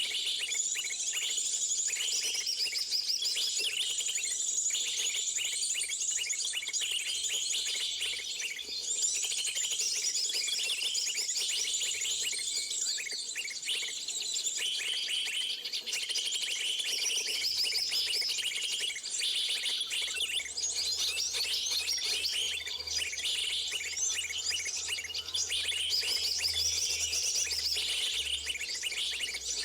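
Many small birds chirping and twittering at once, a dense unbroken chorus of high, quick calls.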